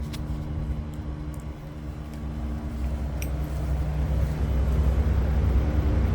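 Daikin Altherma ERLA 11 kW heat pump giving off a loud buzzing: a steady low hum with several fixed tones, growing gradually louder.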